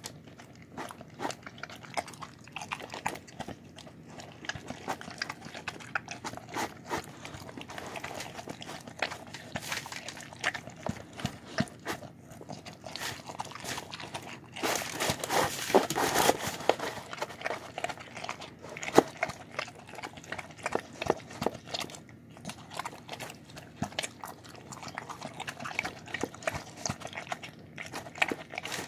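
A dog eating rice and chicken out of a bowl right at the microphone: wet chewing and licking, with many sharp clicks of mouth and teeth against the bowl. A louder noisy stretch of about two seconds comes near the middle.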